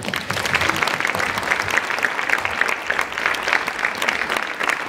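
A large audience applauding, breaking out all at once and carrying on as steady, dense clapping.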